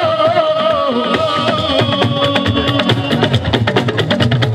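Live Fuji band music: a fast, dense drum and percussion rhythm under a long held melodic note in the first couple of seconds.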